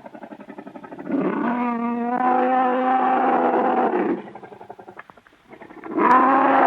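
Monster roar sound effect: a long pitched roar lasting about three seconds, its tone wavering partway through. Quieter pulsing growls come before and after it, and a second roar starts near the end.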